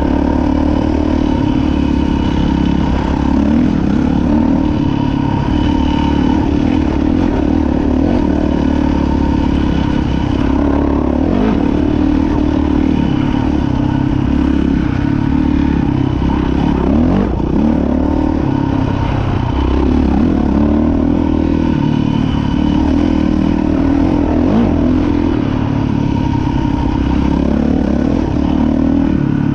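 Dirt bike engine running while being ridden, the revs rising and falling again and again.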